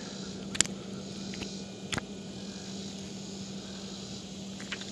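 Quiet steady background hiss with a faint low hum, broken by a few light clicks: one about half a second in, one at two seconds, and a couple near the end, typical of hands handling a small fish close to the microphone.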